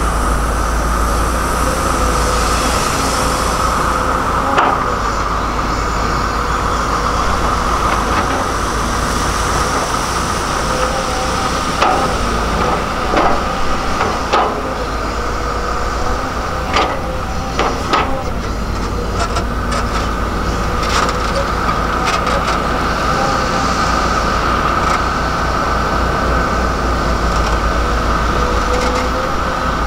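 Volvo EC210DL excavator's diesel engine running steadily under working load with a steady high whine, with a run of knocks and clanks in the middle as the bucket digs into the ground, then dirt pouring into a dump truck's bed near the end.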